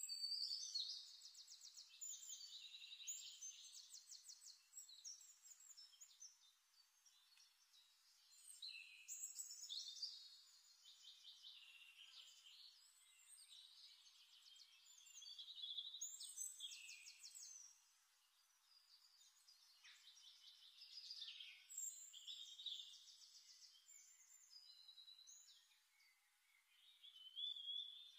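Faint birdsong: phrases of high chirps and trills coming in several bursts, with quieter gaps between them.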